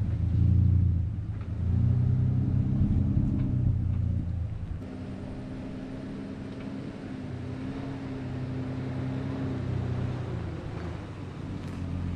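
Toyota LandCruiser 80 Series engine running as the 4x4 moves along a rough track. It is louder for the first four seconds or so, then settles to a steadier, lower level.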